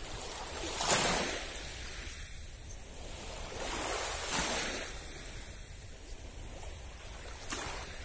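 Small sea waves washing onto the beach at the water's edge, three washes about three seconds apart, the first the loudest.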